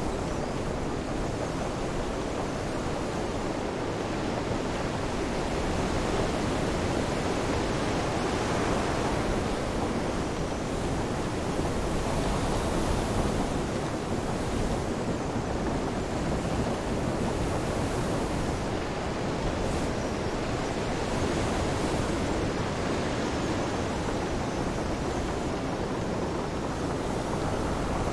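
Storm ambience: a steady, dense wash of wind, rain and surf that swells a little in the middle, with no distinct creaks or knocks standing out.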